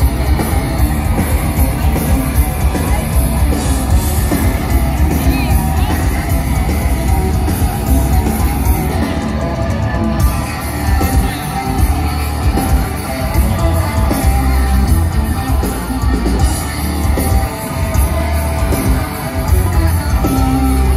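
Live hard rock band playing loud through a festival PA, heard from the crowd: distorted Les Paul electric guitars, bass and drums, with a singer's voice over them.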